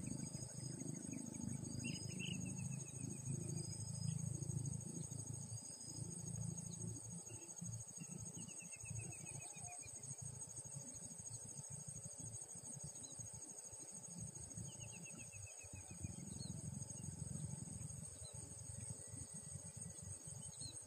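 Steady high insect trilling runs throughout. A few short falling bird chirps come over it, along with an uneven low rumble that is heavier in the first several seconds.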